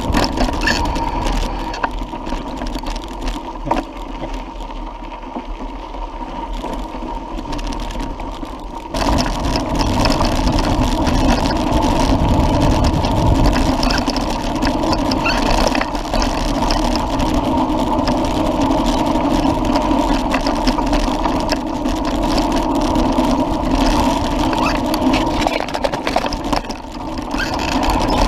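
Mountain-bike riding noise on a dirt forest track: a steady rumble and rattle from the tyres and bike. It gets louder about nine seconds in, as the ride speeds up.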